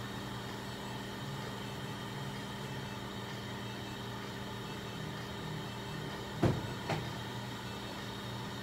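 Steady electrical hum of clinic equipment, with two short knocks about six and a half seconds in.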